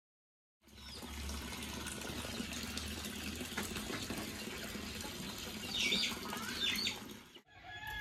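Outdoor farmyard ambience: a steady rushing hiss with a low rumble, and a few short chicken calls about six seconds in. It starts about half a second in and cuts off suddenly near the end.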